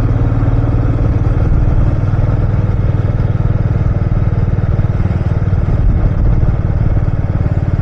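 Royal Enfield Meteor 350's single-cylinder engine running steadily while the motorcycle cruises along the road.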